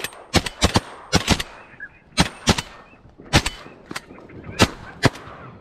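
A rapid volley of shotgun blasts from more than one gun, about a dozen shots at irregular intervals, some in quick pairs, fired at a flock of ducks passing overhead.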